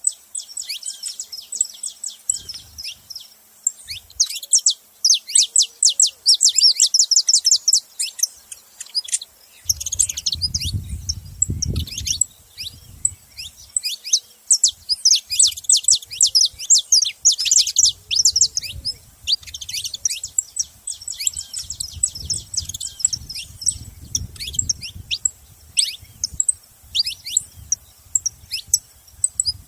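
Saffron finches chirping: a steady stream of quick, high chirps, thickening into dense rapid runs about a fifth of the way in and again a little past halfway.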